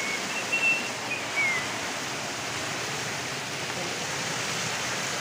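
Water rushing steadily over a concrete weir, a continuous hiss of falling water. A few short, high whistle-like notes sound in the first second and a half.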